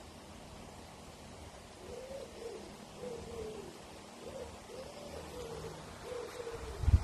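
A pigeon cooing outdoors: a few low, hooting coos in short phrases, beginning about two seconds in.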